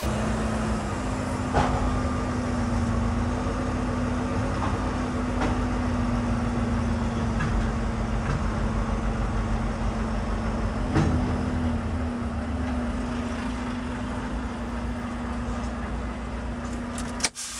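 Semi-truck's diesel engine idling with a steady, even hum, with a few faint clicks.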